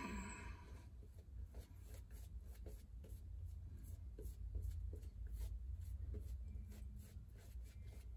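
Shaving brush working lather over a stubbly cheek and chin: faint brushing strokes in quick succession.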